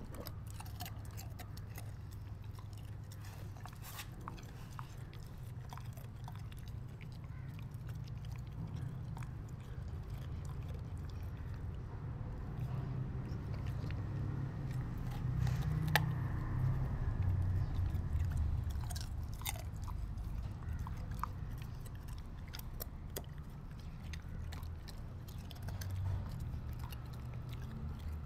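A Rottweiler puppy chewing and crunching a raw carrot, with scattered sharp crunches as it bites, the loudest about sixteen seconds in, over a low steady rumble.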